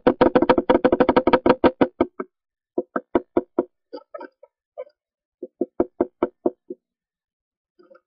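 Red-bellied woodpecker tapping on the wood from inside its nest box, heard close up within the box. A fast run of about eight knocks a second stops about two seconds in, followed by short bursts of a few knocks with pauses between them.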